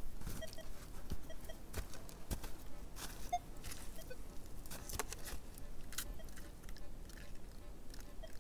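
Footsteps crunching on snow and soil, with irregular clicks and rustles as a metal detector is picked up and its coil lowered; a few faint, short tones.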